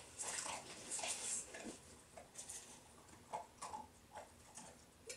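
A small dog eating dry food from a metal bowl held in a person's hands: scattered light clicks and rattles at irregular intervals.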